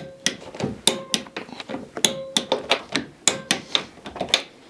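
Irregular run of sharp metallic clicks and taps, a few of them ringing briefly, as a torque wrench and socket are worked on a front-suspension nut.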